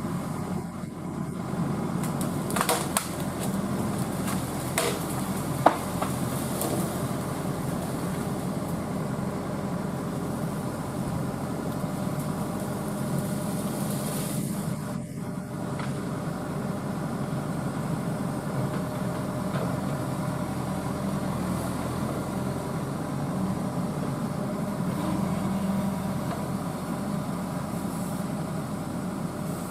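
Excavator's diesel engine running steadily, with a few short sharp knocks in the first six seconds, the loudest about six seconds in.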